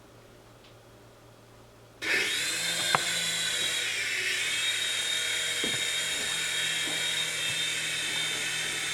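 Small electric motors of a ToyJoy M302 indoor RC helicopter spinning up about two seconds in, then a steady high-pitched whine of motors and rotor blades, its pitch shifting slightly about two seconds later.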